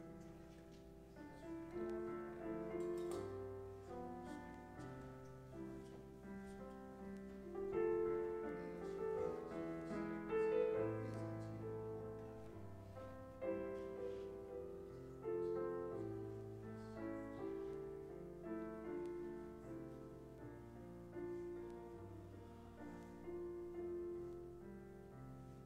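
Slow instrumental keyboard music, piano-like, played in held chords that change about once a second.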